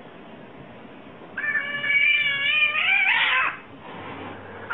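A tabby cat lets out one long, wavering meow about a second and a half in, lasting about two seconds and turning rough at the end.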